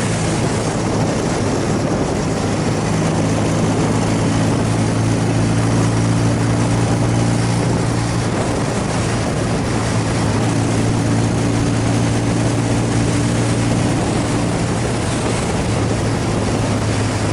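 BMW flat-twin motorcycle engine running at a steady cruising speed, a constant low engine note under heavy wind rush.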